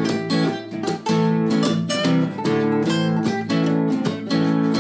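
Two nylon-string classical guitars playing together, strumming chords in a steady rhythm.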